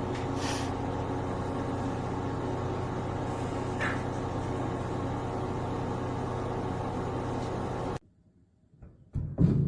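Samsung MG23F301TAK microwave oven running: a steady hum with fan noise that cuts off abruptly near the end. Music with percussive beats starts about a second later.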